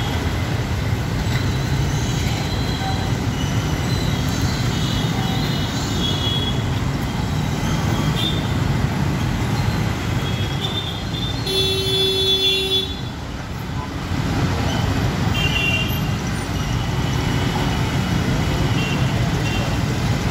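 Slow road traffic of auto-rickshaws, cars and motorbikes, engines running in a steady rumble, with several short horn toots and one longer horn blast about twelve seconds in.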